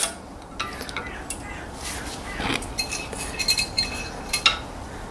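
Small metal clicks and clinks as the thin steel brake-pad clips are worked out of a front brake caliper carrier, with a brief metallic ringing near the middle.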